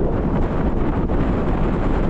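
Storm wind buffeting the microphone: a steady, dense rumble with no distinct events.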